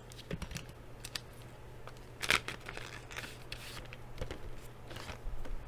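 Trading card packaging and oversized cards being handled: short, irregular rustles and crinkles, with a louder rustle about two seconds in.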